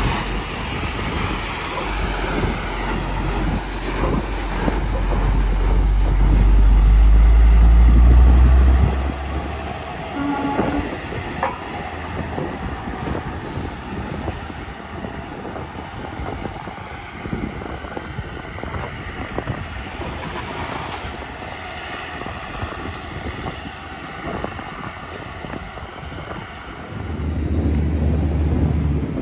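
Heavy diesel engine of a Peterbilt semi truck pulling up a steep grade, a loud low drone that builds for about eight seconds and then falls away. Lighter traffic noise follows, and another truck's engine drone builds near the end.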